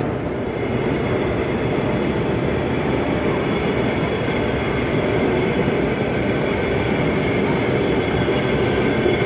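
0 gauge model train running along the layout's track, a steady noise of metal wheels on rail.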